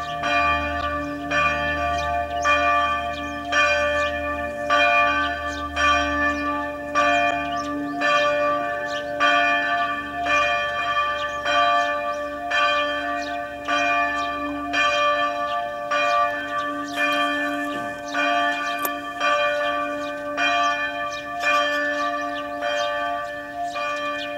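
Church bells ringing in a steady run of strikes, about one every three-quarters of a second. Each strike rings on with several tones and overlaps the next.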